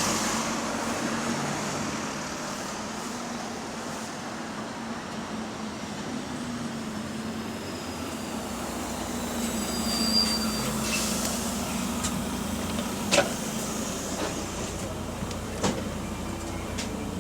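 Bus engine running while the bus is under way, a steady drone with the noise of an exhaust leak. A few sharp knocks or rattles come in the second half.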